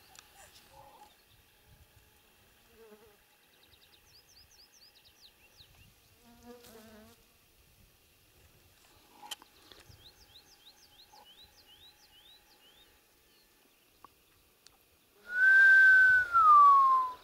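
A single loud human whistle near the end, a clear note held high, then gliding down, with breathy hiss around it. Faint songbird notes run in quick downward-sliding series before it.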